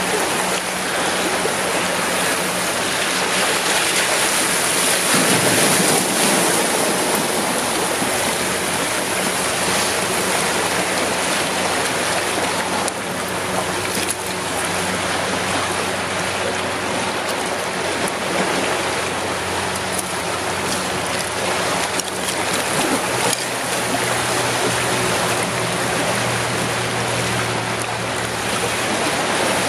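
Sea surf washing steadily against a rocky shore, a constant loud rush with no let-up. A few light clicks come through around the middle.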